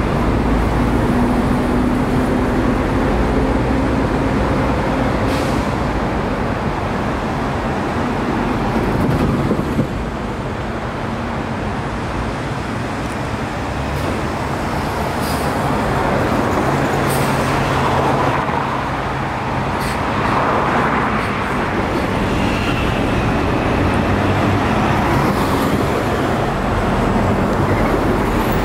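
Busy city-street traffic, with city buses and cars driving past close by: steady engine hum and tyre rush. A bus engine's low drone is strongest at the start, and the level drops abruptly about ten seconds in.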